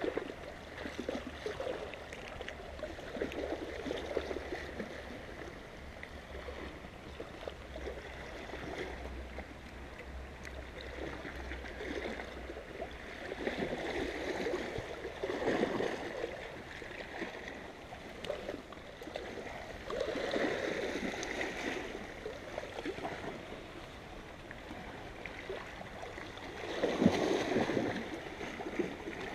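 Small sea waves lapping and sloshing against shoreline rocks, swelling every several seconds.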